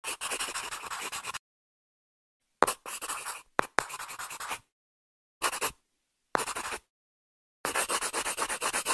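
Pencil scratching on paper as letters are written, in about six separate spells of quick scratchy strokes with silent gaps between them.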